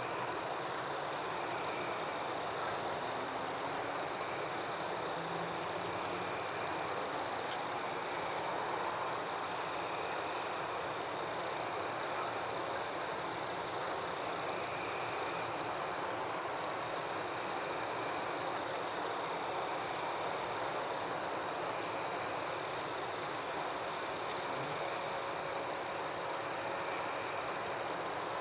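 Night chorus of frogs and insects: a continuous high trill with quick pulsing calls above it and fainter repeating calls lower down, steady throughout.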